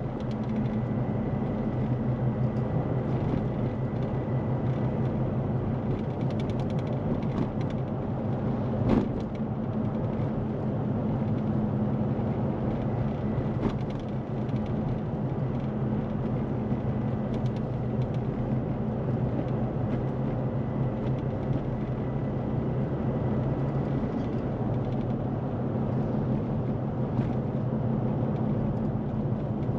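A vehicle on the move: a steady engine and road drone, with a brief knock about nine seconds in.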